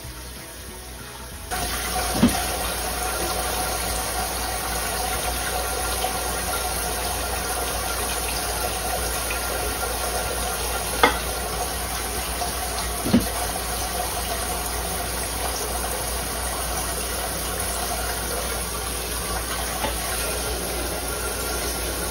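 Water running steadily into a large pressure-cooker pot, filling it as a water-bath canner, starting suddenly about a second and a half in. A few sharp knocks come through it.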